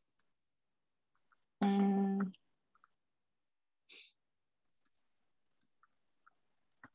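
A few faint, scattered computer-mouse clicks while a trading chart is navigated, with a person's drawn-out, steady-pitched "mmm" hum about two seconds in and a brief soft puff of breath near four seconds.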